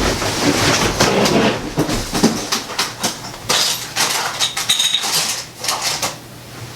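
Rapid, irregular clattering of small hard objects being handled and moved about, with clicks, knocks and rustling, quieter near the end.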